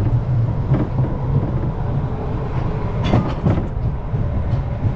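Arrow mine train roller coaster running along its tubular steel track: a steady low rumble from the wheels, with sharp clacks about a second in and again around three seconds in.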